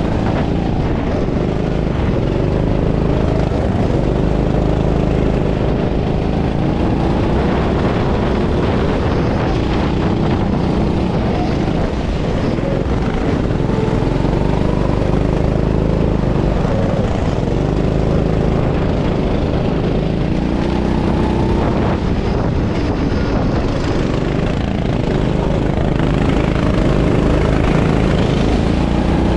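Rental go-kart engine heard on board, its pitch repeatedly rising as it revs up and dropping off again as the kart laps the track.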